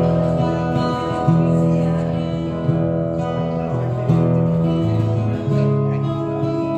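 Acoustic-electric guitar played as an instrumental passage through a PA, the chords changing several times.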